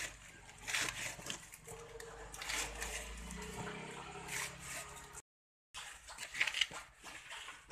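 A knife chopping leaves on a wooden block: a few separate crisp, crunching chops, with a faint steady hum behind them in the middle part. The sound cuts out briefly about five seconds in.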